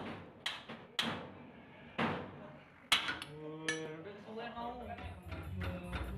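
Sharp metallic clanks of steel hand tools, a socket and breaker bar set against a car's front suspension arm, about six knocks with a ringing tail, the loudest about three seconds in. A voice speaks briefly after them, and a low hum comes in near the end.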